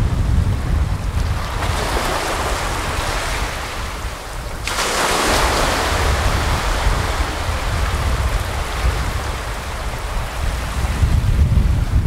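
Small waves breaking in the shallows and washing up a sandy beach. A louder wash starts suddenly about halfway through and fades away over several seconds. A low wind rumble on the microphone runs underneath.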